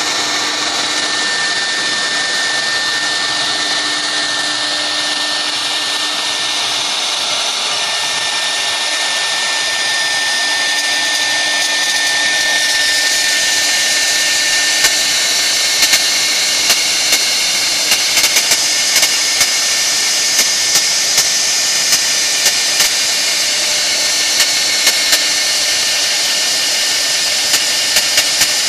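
CNC router spindle carving a relief into a wood board, running with a steady high whine and the rush of the cutter. From about halfway on, short sharp clicks come and go.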